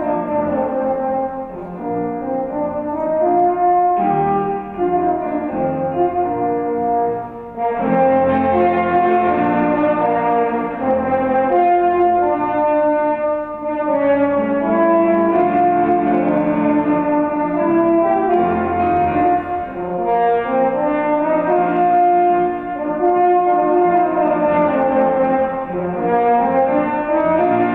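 French horn and piano playing together: the horn carries a melody of held and moving notes over the piano accompaniment, with two brief breaks in the phrasing.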